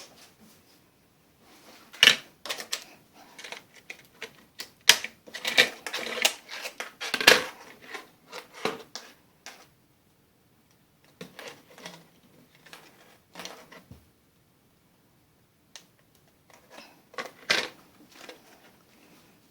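Irregular hard clicks and clattering knocks of a laptop's plastic case and parts being handled and reconnected, in quick runs with short pauses between them.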